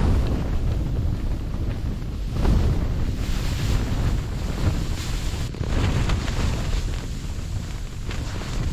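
Strong gusting wind of a sandstorm buffeting the microphone: a heavy, low rumbling rush that swells and eases with each gust.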